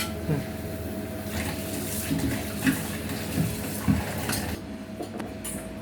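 An egg frying in a pan, the oil sizzling as a steady hiss, with a few light clinks of a spatula against the pan.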